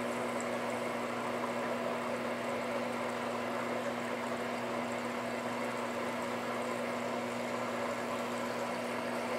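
Black and Decker portable top-load washing machine filling at the start of its wash cycle: a steady stream of water pouring into the tub onto the clothes, with a steady hum under it.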